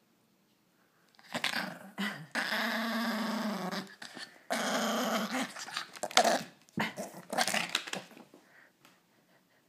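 Small dog growling in a string of bouts, two of them long and drawn out, as a hand reaches for the bone it is guarding: a warning growl of a dog guarding its bone from its owner.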